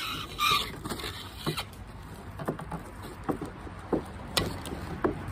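Light, irregular taps and knocks of small toy items and packaging being handled on a tabletop, about one every half second to a second, with a short rustle of packaging near the start.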